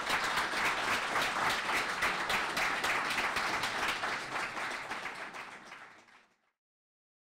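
Audience applauding at the end of a talk, a dense patter of many hands clapping that fades out about six seconds in.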